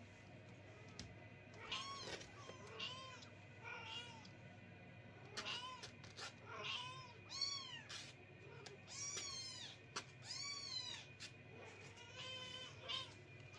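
Several kittens meowing over and over, with short, high, thin calls that rise and fall in pitch, some overlapping one another. The calls come thickest in the middle stretch.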